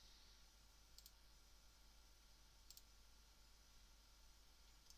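Near silence with three faint computer mouse clicks, about a second in, near the middle and at the very end, over low room tone.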